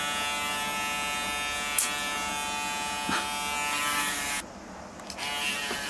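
Braun electric shaver running steadily against stubble on the jaw and neck, a constant motor buzz with a couple of brief clicks. About four and a half seconds in the buzz drops away for under a second, then comes back.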